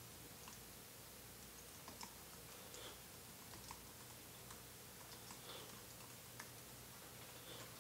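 Faint, irregular keystrokes on a computer keyboard as a line of text is typed, over a low steady hum.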